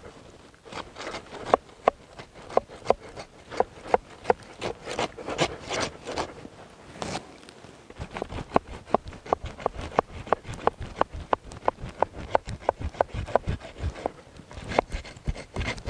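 Two bread-knife blades on a spade handle sawing through a thick mat of dry hay mulch along slots cut in a wooden board. The sound is a quick series of short scratching strokes, about four a second through the second half.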